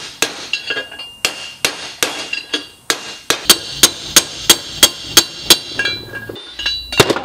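Ball-peen hammer striking a steel driver over and over, each blow a sharp metallic clink with a short ring, about three a second. The blows are tapping the rear pinion bearing race out of a Subaru R180 differential housing.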